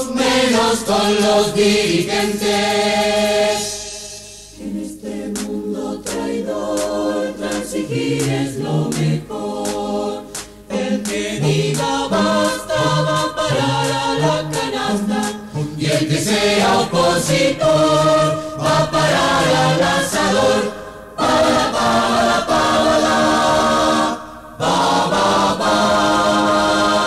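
A polyphonic choir singing a cappella, from a 1986 cassette recording, with short low bass notes through the middle. It closes on a long held chord after a brief break near the end.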